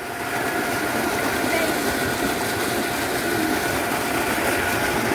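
Steady rushing of water gushing from a tube well's outlet into a concrete tank, growing a little louder about half a second in.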